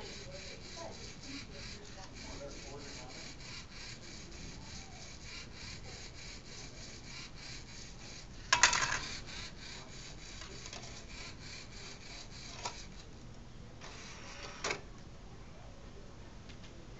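A motor-driven mechanism from a Lego Mindstorms NXT robot CD/DVD changer and its external DVD drive runs with a steady rasping whirr full of rapid, even ticks. It is broken by a loud clack about halfway through. Near the end the external DVD drive's tray draws in with a short whirr that ends in a click.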